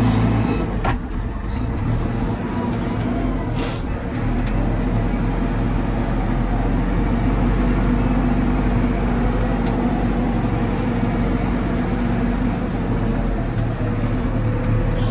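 JCB 4CX backhoe loader's diesel engine running steadily while the machine works, with a few short clicks or knocks.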